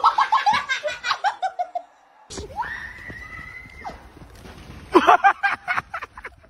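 A person laughing in quick bursts that fall in pitch, then a single long high-pitched scream held for over a second. About five seconds in comes another loud burst of laughter.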